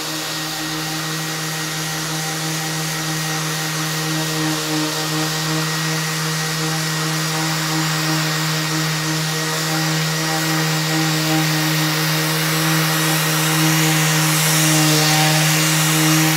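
Random orbital sander running steadily on a wood slab with 150-grit paper, together with its hose-connected dust extractor: a continuous hum and whine over the hiss of abrasive on wood, slightly louder toward the end.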